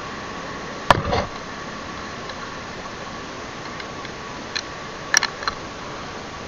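Handling noise close to the microphone: a few sharp knocks and rubs as hands work at gear, the loudest about a second in and a small cluster about five seconds in. Under them runs a steady hiss with a faint high steady tone.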